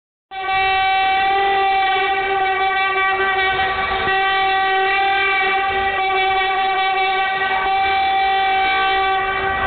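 A handheld metal horn with a flared bell, blown as one long steady note for about nine seconds. The note stops just before the end.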